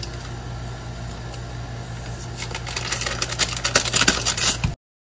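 Paper butter wrapper crinkling and rustling in quick crackles as sticks of butter are unwrapped over the pan, starting about halfway through, over a steady low hum. The sound cuts off suddenly just before the end.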